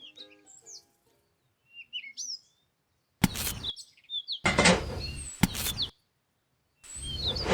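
Small birds chirping, broken from about three seconds in by three loud stretches of noise, each up to about a second and a half long, that start and stop abruptly.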